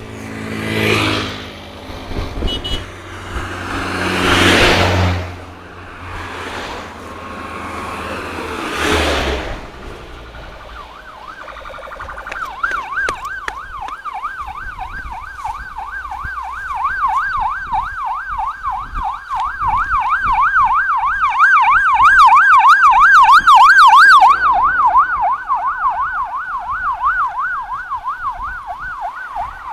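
Several motor vehicles pass close by in the first ten seconds, then a fast-warbling yelp siren of an escort vehicle in a race convoy comes in and grows louder, loudest about three quarters of the way through.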